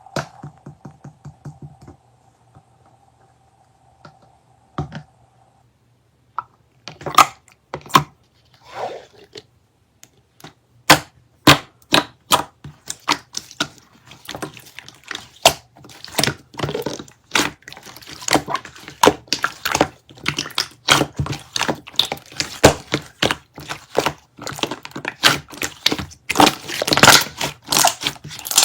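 Slime being squished and pressed by hand, making sharp clicks, pops and crackles; sparse at first, then a dense, irregular run of crackling from about ten seconds in.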